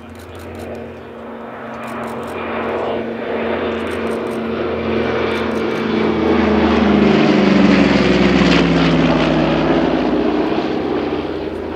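Douglas C-47A Skytrain (DC-3) with its two Pratt & Whitney R-1830 Twin Wasp radial engines running in a low flypast. The engines grow louder to a peak about seven or eight seconds in, their pitch drops as the plane passes, and then they fade a little.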